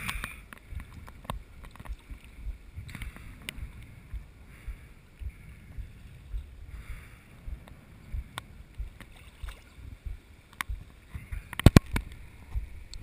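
Small lake waves lapping and sloshing against a camera held at the water surface, with an uneven low rumble and scattered clicks as the water hits the housing. There is a cluster of louder knocks near the end.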